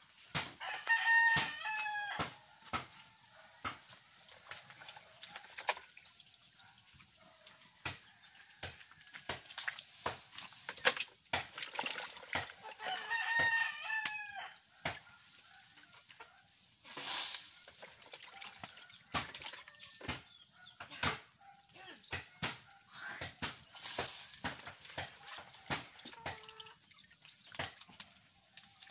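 A rooster crows twice, once about a second in and again about thirteen seconds in, each call long and dropping in pitch at the end. Underneath, a wood cooking fire crackles and pops steadily, with a couple of short hisses near the middle.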